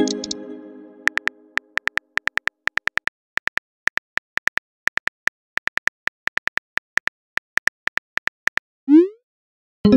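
Simulated phone-keyboard typing clicks, several a second in an uneven patter. They come after a short pitched message-arrival chime at the start, and near the end there is a quick rising swoosh as the message is sent.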